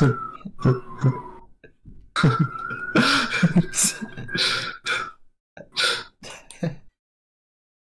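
A person's voice making irregular coughing and throat-clearing noises, which stop abruptly about seven seconds in.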